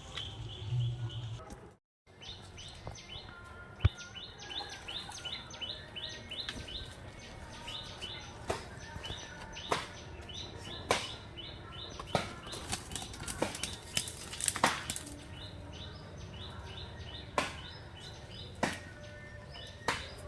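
Birds chirping in quick repeated runs of short high notes, with scattered sharp clicks or knocks. The sound drops out briefly about two seconds in.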